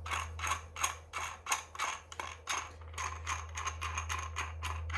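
Rapid clicking of a ratcheting hand tool tightening the nut that holds a mild-steel ground spike to a vase base plate. There are about four clicks a second at first, quickening after about three seconds, over a steady low hum.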